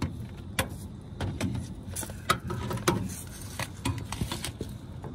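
Irregular clicks, taps and knocks of hands handling things, a dozen or so scattered sharp sounds with the loudest about two and three seconds in, over a steady low hum.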